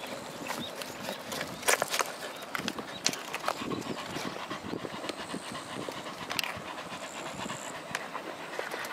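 Welsh corgi panting steadily, with a few short sharp knocks over it, the loudest a little under two seconds in.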